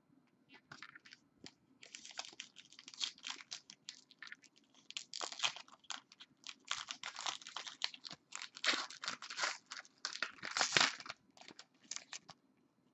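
Crinkling, crackling and tearing of a foil trading-card pack wrapper being handled and opened, in many short irregular bursts.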